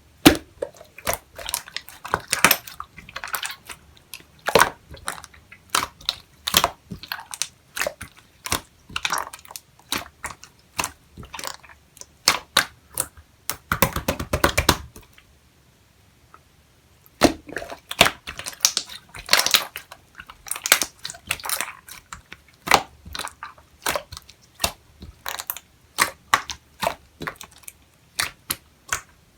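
Clear slime being squeezed and pressed by hand, giving irregular sharp pops and clicks as trapped air bubbles burst. About halfway through there is a dense run of fast crackling, then a short pause before the popping resumes.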